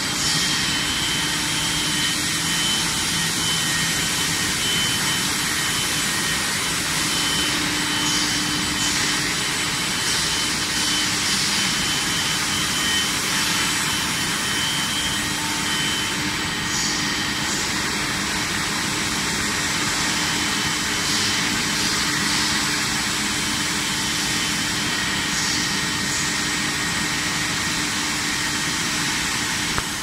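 Steady industrial noise from a steel bar induction hardening and tempering line: a dense, even rush of machinery with a low hum and a few steady high-pitched whines over it.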